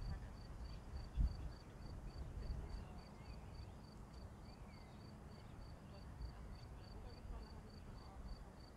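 A cricket chirping steadily at about four chirps a second, over a low rumble, with one short low thump about a second in.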